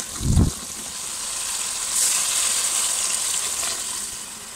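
Potato-and-spinach masala sizzling in a hot pot, with a low thump right at the start. About two seconds in the hiss suddenly gets louder as water goes into the hot masala, then it slowly dies down.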